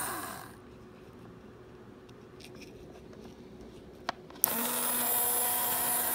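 Small brushed DC hobby motor, run at 12 V through a PIR motion-sensor relay module, spinning down as its power is cut. About four and a half seconds in, a sharp click comes as the relay switches on, and the motor starts up again and runs at a steady high whine.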